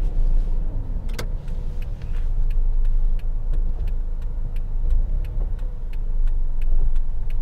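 Car engine running with a low rumble, heard from inside the cabin, with a sharp click about a second in. From about two and a half seconds in, a steady ticking of about three clicks a second, like a turn-signal indicator, while the car waits to pull out.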